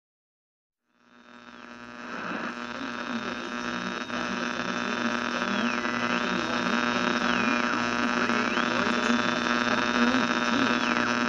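Steady electrical mains hum with many buzzing overtones. It fades in after about a second of silence and grows louder over the next few seconds. A high whine above it drops in pitch and climbs back up several times.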